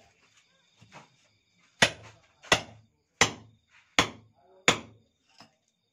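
Hammer blows at the brickwork around a dripping water tap that is being knocked out for replacement: five sharp strikes about two-thirds of a second apart, with a couple of lighter taps before and after.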